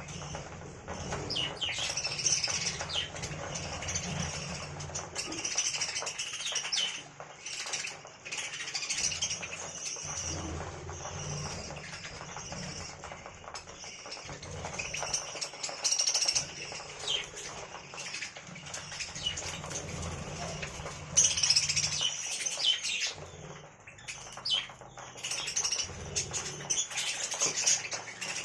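Budgerigars chirping and chattering without pause, their high twittering notes overlapping, with wing flutters and short clicks mixed in.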